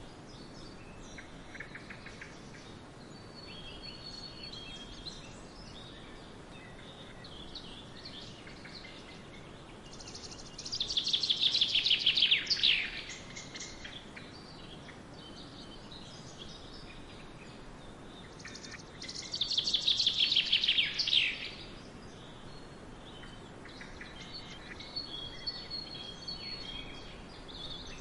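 Forest songbirds singing. Twice, a loud song of rapid notes runs for about two and a half seconds and falls in pitch towards its end, the two songs some eight seconds apart. Fainter chirps from other birds and a steady background hiss run under them.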